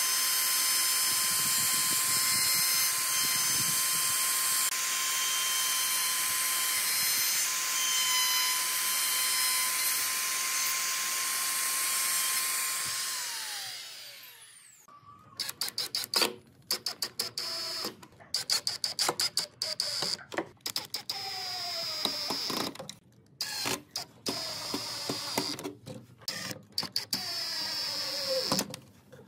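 Compact trim router running steadily as it cuts along the edge of a pine frame, then spinning down about 13 seconds in. After that, a drill/driver driving screws into a steel hinge in many short bursts, its motor revving up and down with each squeeze of the trigger.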